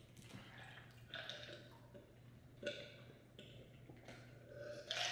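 Faint eating and drinking sounds: a drink being swallowed from a glass, chewing, and a few small clicks and rustles of food being handled, over a low steady hum.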